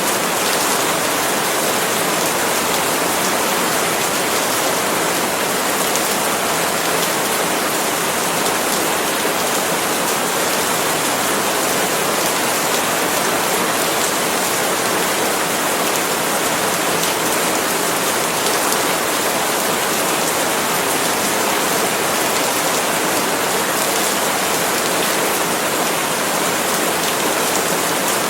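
Steady, constant rain falling on palm leaves, a dense even hiss of drops with no breaks.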